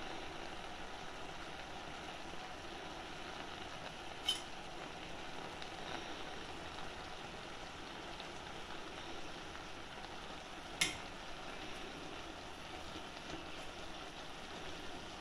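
Spinach and tomato sizzling steadily in a metal pan, with a steel spatula clinking against the pan twice, about four and eleven seconds in.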